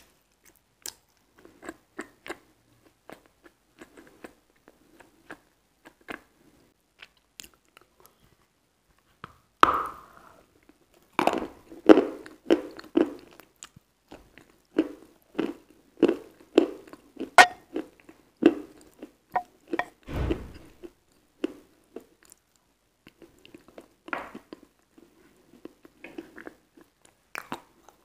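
Wet chewing and mouth sounds from eating a soft, creamy dessert close to the microphone: soft smacking at first, then a loud bite about ten seconds in and a run of loud, wet, crunchy chews. There is a low thump about twenty seconds in, and quieter chewing toward the end.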